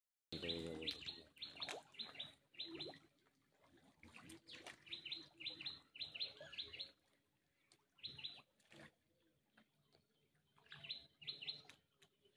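Small birds chirping in quick clusters of short, high notes, repeated every second or so with short pauses between.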